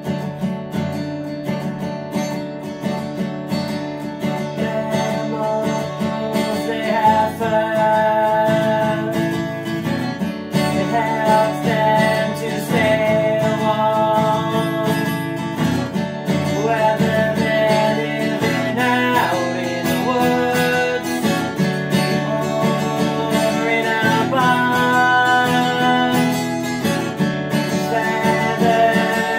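A strummed acoustic guitar plays a children's song. A melody line comes in over it about seven seconds in.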